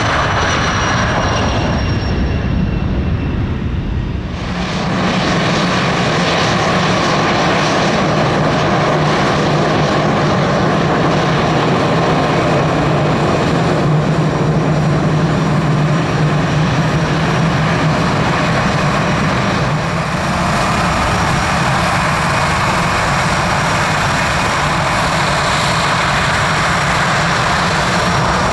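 Bombardier Challenger business jet's turbofans at take-off power, their whine falling in pitch as it climbs away. About four seconds in, this gives way to an Airbus A321 taxiing, its jet engines running with a steady low hum and whine.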